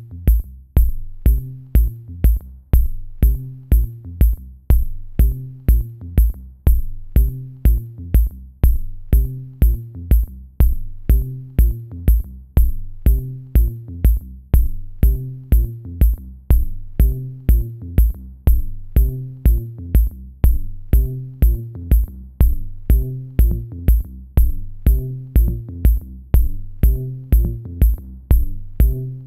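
Electronic background music with a steady drum-machine beat and a repeating bass line.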